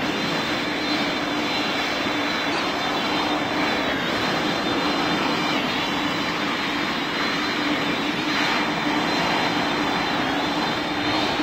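Steady noise of a FedEx jet's engines and rushing air heard from on board, with a steady low hum and a faint whine rising near the end.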